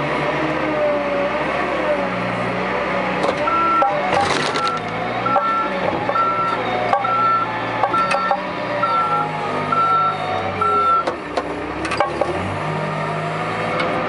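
Case 580 backhoe's diesel engine running and changing speed under load. For several seconds in the middle a reversing alarm beeps about once a second, with a few sharp metal clanks.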